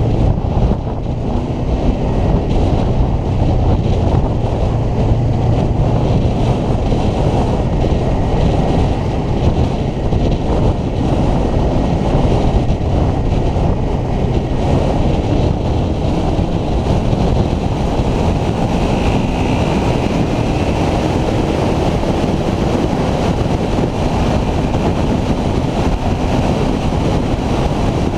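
Honda VFR800X Crossrunner's V4 engine running steadily at road speed, mixed with heavy wind noise rushing over the microphone.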